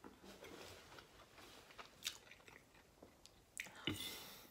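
A person chewing a mouthful of beef stroganoff pasta: faint wet mouth sounds with a few soft clicks, and a short breath near the end.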